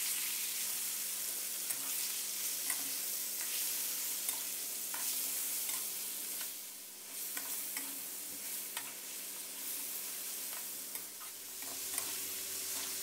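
Pieces of raw pork soft rib sizzling in hot oil, stir-fried with a metal spatula that scrapes and clicks against the metal pan now and then.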